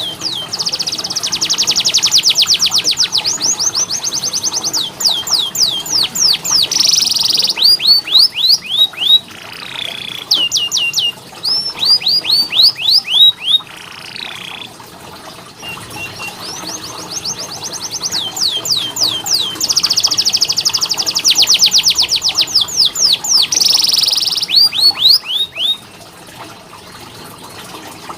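Domestic canary singing a long song of very fast trills and runs of quick falling whistled notes. The song breaks briefly about halfway through and then goes through much the same sequence again.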